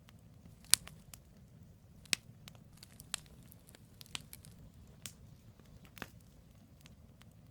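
Wood campfire burning: the logs crackle and pop, with about six sharp snaps roughly a second apart, the loudest just under a second in, over a steady low rumble.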